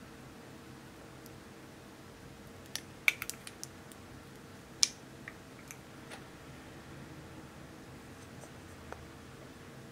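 Small plastic-and-glass clicks and taps from a makeup brush, a plastic compact and a glass dish being handled. There is a quick cluster of clicks about three seconds in and one sharp tap near five seconds, over a low steady hum.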